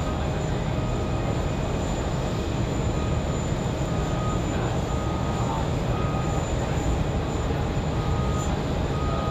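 Jet aircraft engines running, a steady even roar with faint tones in it that neither builds nor fades.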